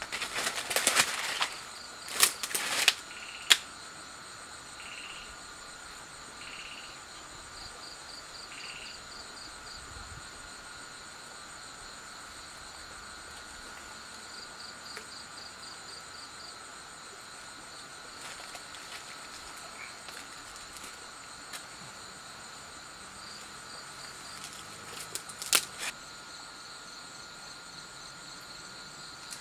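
Night insect chorus of crickets: several steady high trills, with pulsed chirp sequences coming and going. Dry leaves and twigs crackle loudly in the first few seconds, and a few sharp snaps come about 25 seconds in.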